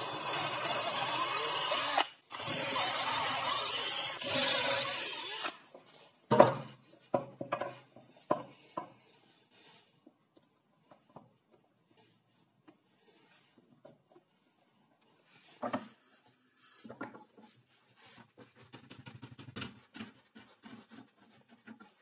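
Cordless drill boring out the centre hole of a laminated plywood star knob to take a T-nut, in two runs of about two seconds each with a short pause between. After it, a few sharp knocks and clatter, then quieter knocks and rustling near the end.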